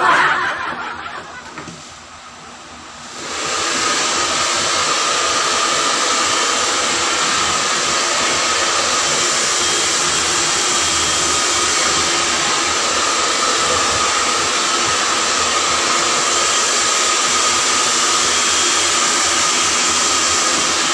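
A hair dryer switches on about three seconds in and runs steadily while wet hair is being dried. Before it, a short loud sound at the very start fades away over about two seconds.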